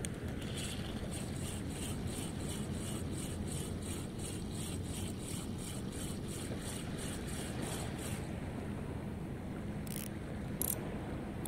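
Relix Cetus Attach 1000 spinning reel being cranked to retrieve a lure, ticking steadily about three times a second, over a steady low rumble. The cranking stops about eight seconds in, and two sharp clicks follow a few seconds later.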